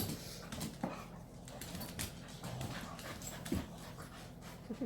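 Dogs making small sounds up close: a couple of brief dog vocal noises amid scattered light clicks and rustles.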